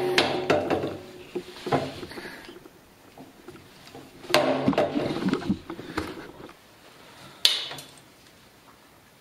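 Hands fitting parts onto the tubular steel frame of a Husky 5000-watt portable generator: irregular clattering and knocking in several bursts, with a sharp knock about seven and a half seconds in.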